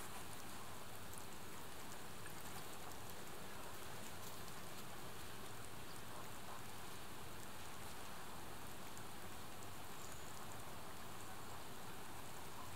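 Quiet outdoor ambience: a steady, even hiss with faint scattered ticks, and no distinct event.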